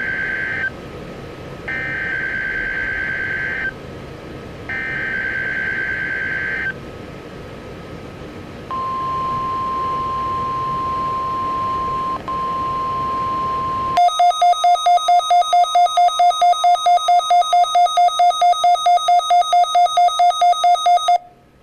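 EAS Required Weekly Test tones on a weather radio broadcast: three bursts of screechy SAME header data, each about two seconds long with a second's gap. These are followed by a steady attention tone, broken once, for about five seconds. Then comes a louder, buzzy electronic beep pulsing about four times a second for about seven seconds, ending abruptly.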